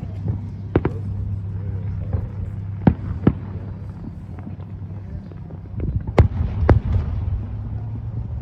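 Static on a received radio feed: sharp cracks and pops at irregular intervals over a steady low hum, with a cluster of louder cracks about six seconds in.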